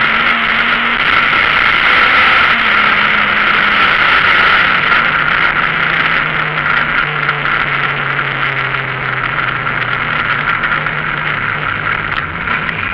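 Citroën Saxo VTS rally car's four-cylinder engine heard from inside the cabin, under a loud, steady rush of cabin noise. The engine pitch drops lower from about six seconds in and again near the end as the car eases off.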